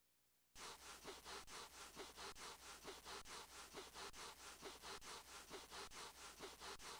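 Cartoon sound effect of a small dog's feet scuffing over carpet to build up a static charge: rhythmic scratchy rubbing strokes, about two and a half a second, starting about half a second in.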